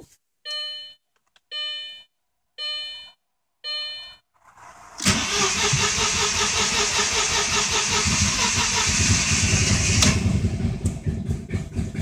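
Four dashboard warning chimes about a second apart, then the 2000 Audi S4's 2.7-litre twin-turbo V6 cranking on the starter for about five seconds with a little throttle. Near the end it gives a brief ragged sputter and dies: a crank-no-start later traced to no compression on the passenger-side bank from a bent valve.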